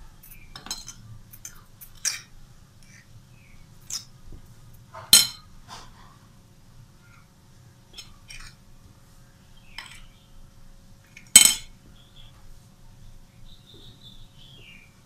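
Steel fork clinking and tapping against a ceramic plate while coating a patty in bread crumbs: a run of light clicks, with two louder clinks about five seconds in and about eleven seconds in.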